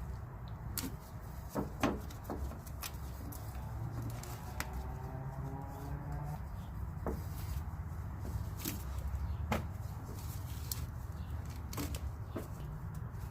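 Scattered light clicks and knocks as a new rubber front sway bar bushing is worked into place on the sway bar, over a steady low hum.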